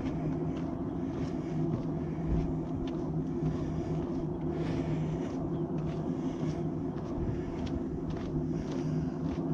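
Steady low hum of motor traffic, with a few held low tones.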